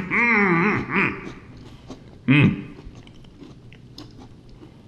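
Mint Oreo cookies being chewed, with soft crunching and faint chewing clicks. Short muffled vocal sounds are the loudest part, in the first second and again briefly about two seconds in.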